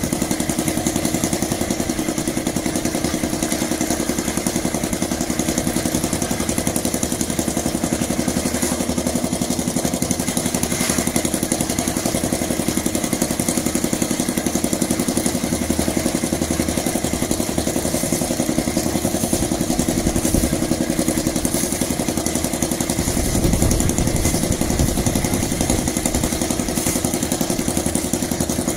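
A small engine running steadily at a constant speed, with a heavier low rumble for a couple of seconds about three-quarters of the way through.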